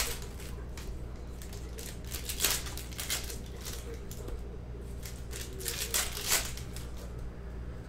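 Glossy Panini Mosaic basketball cards being handled and laid onto a stack, making several short papery swishes and slaps of card stock over a steady low hum.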